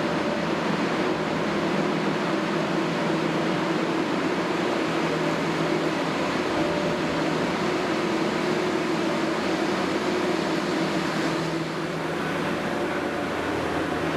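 New Holland skid-steer's diesel engine running steadily, easing off slightly about eleven seconds in.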